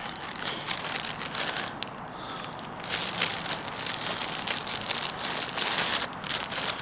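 Plastic bag of cotton wool crinkling as it is handled and a wad is pulled out of it: an irregular run of crackles.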